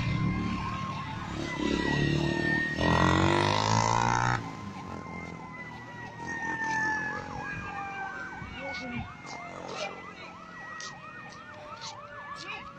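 Emergency vehicle sirens wailing, with the pitch slowly sinking through the second half as a siren draws away, and a rapid warbling siren under it. A loud rush of noise and low rumble about three to four seconds in.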